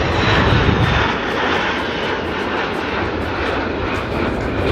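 Aermacchi MB-339 jet trainers flying past in close formation: a steady jet rush, loudest in the first second or so and then easing slightly.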